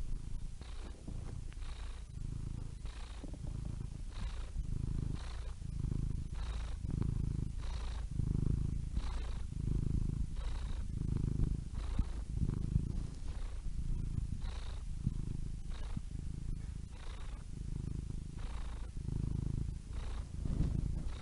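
Domestic cat purring steadily close up, the low rumble swelling and easing about once a second with each breath in and out.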